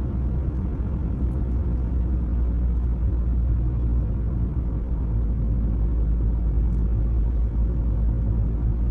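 Steady low rumble of a moving car, with engine and tyre noise on the road heard from inside the cabin.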